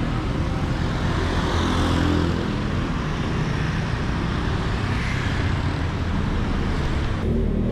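Street traffic: cars and motorbikes passing close by on a town road, a steady rumble and hiss that swells as a vehicle goes past, breaking off near the end.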